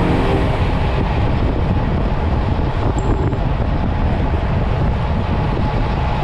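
Steady, loud wind rushing and buffeting on the microphone of a moving motorcycle, with deep rumble from the ride underneath.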